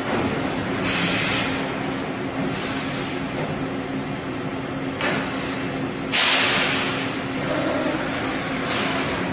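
Compressed-air hiss from the pneumatic robotic sheet-loading system of a turret punch press: several short bursts, the loudest a little after six seconds in, over a steady machine hum.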